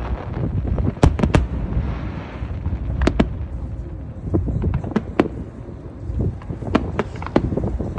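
Aerial fireworks bursting in an irregular string of sharp bangs, some in quick pairs, more frequent in the second half, over a steady low rumble.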